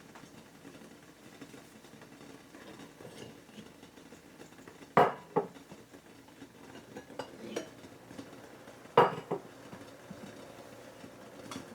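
Dishes and cutlery clinking: two pairs of sharp clinks about five and nine seconds in, with softer taps and knocks between.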